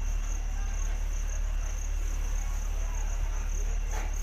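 Insects chirping in a steady, high, pulsing drone over a steady low rumble, with a single brief click near the end.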